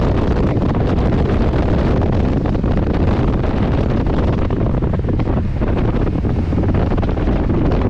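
Steady wind noise buffeting the microphone of a camera on a moving motorcycle, with the motorcycle's engine and tyre noise underneath.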